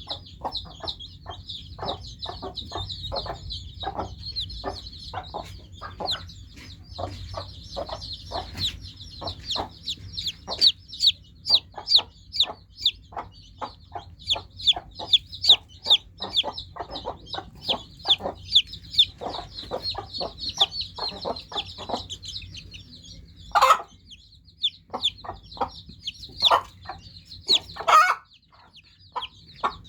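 A brood of newly hatched chicks peeping continuously, many short, high, falling peeps overlapping into a dense chorus, with two louder sharp calls about two-thirds of the way through and near the end.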